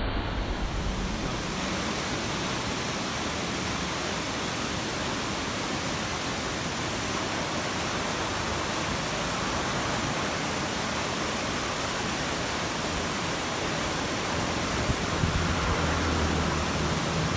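Steady rush of flowing river water, an even hiss with no break. A low rumble joins about 15 seconds in.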